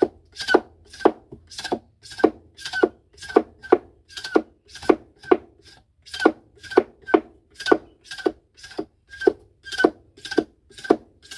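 Sugarcane rind being scraped off with a homemade scraper made from a hacksaw blade: quick, even rasping strokes, about two a second.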